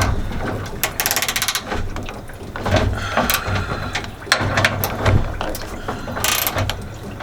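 Socket ratchet wrench clicking in a quick run, then in shorter strokes with scattered metal knocks, as it loosens the radiator hold-down bolts.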